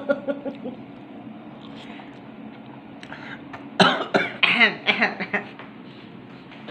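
A man coughing in a quick, loud series about four seconds in, after a spoonful of spicy ramen broth.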